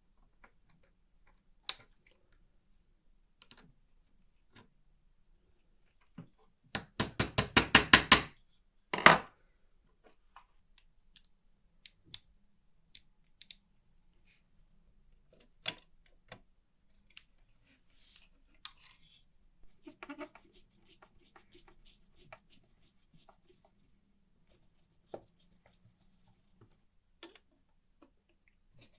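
Small mechanical clicks and taps from the 1949 Olympia typewriter being worked on. About seven seconds in comes a quick run of about a dozen evenly spaced clicks, followed by a single louder knock.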